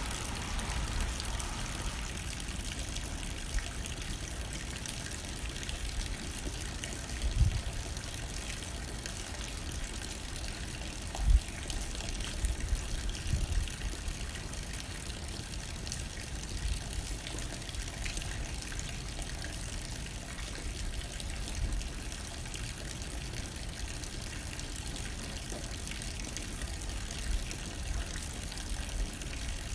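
Steady rain hitting a window with light wind, an even hiss over a low rumble. A few short low thumps come through, the loudest about a third of the way in.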